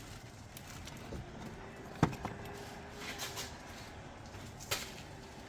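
Handling noises as a handle-less car battery is worked up out of its tray in the engine bay: two sharp knocks, about two seconds in and near the end, with faint scraping between.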